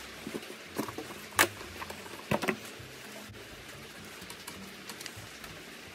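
A few sharp clicks and knocks, the loudest about a second and a half in, as the wire-latched plastic lid of a car's relay box is unclipped and lifted off. These are followed by softer handling sounds at the relays.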